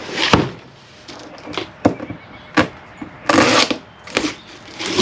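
A large cardboard shipping box being handled and shifted: a string of short scrapes, rustles and knocks, with a longer scrape about three and a half seconds in.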